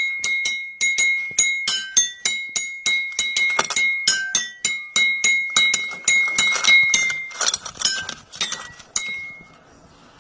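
A quick run of struck, ringing notes, about three a second, mostly on one high pitch with a few lower notes mixed in, like glass being tapped or a small chime instrument being played. The notes stop about nine seconds in.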